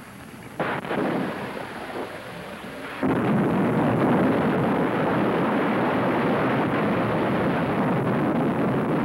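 Mark 48 ADCAP torpedo warhead exploding under a surfaced submarine hulk, heard from a distance. There is a shorter burst of noise just over half a second in, then the blast comes in suddenly about three seconds in and carries on as several seconds of dense, heavy noise.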